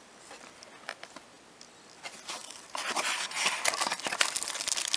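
Clear plastic packaging around a set of clock hands crinkling and rustling as it is handled, starting a little before halfway and going on in a dense run of small crackles. Before that, only a few faint clicks and taps.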